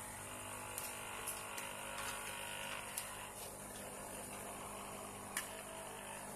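Steady low hum with a few short, light clicks scattered through it; the loudest click comes about five seconds in.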